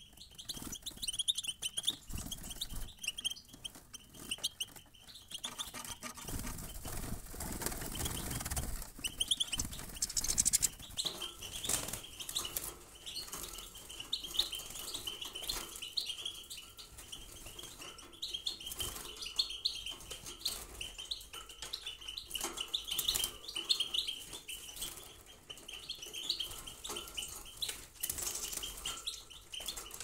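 Black-headed European goldfinches twittering: many short, high chirps repeating throughout, with wing fluttering in the first third.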